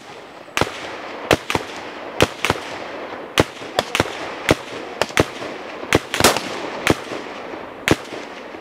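Gunfire from a wild boar drive: about fifteen sharp shots in an irregular rapid string, their echo hanging between them as a steady rumble.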